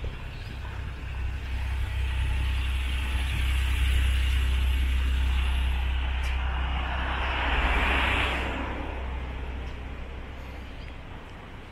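A motor vehicle passing close by on the street: a low engine rumble builds over a few seconds, peaks with a louder rush of noise about eight seconds in, then fades away.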